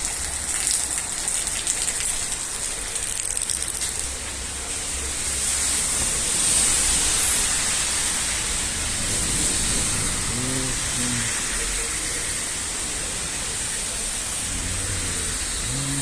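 Steady rain falling: an even hiss, with a crackly patter of drops for the first few seconds, then a smoother rush.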